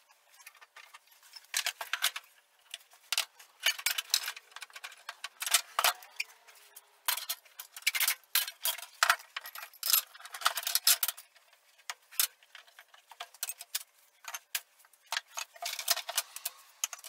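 Metal bar clamps being loosened, lifted off glued-up boards and laid on a table saw's top: irregular clinks, clicks and rattles of steel on steel.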